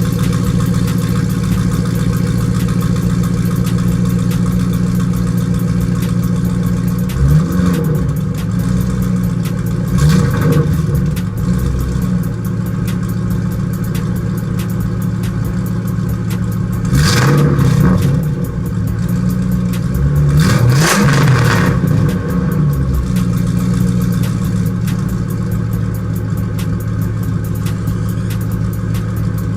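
Straight-piped Ford Mustang exhaust, no mufflers, idling steadily and blipped four times, the engine note rising and falling with each rev.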